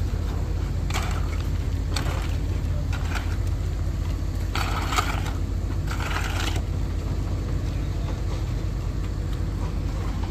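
Concrete mixer truck's diesel engine running steadily at a low pitch, with several short scraping and crunching noises over it in the first seven seconds.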